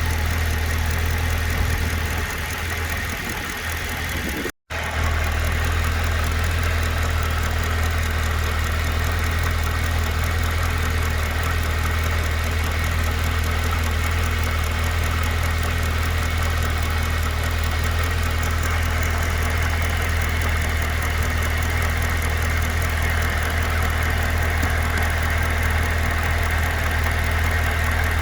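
2012 Cadillac CTS-V's supercharged 6.2-litre V8 idling steadily, with the ticking/knocking noise whose source the owner is trying to pin down.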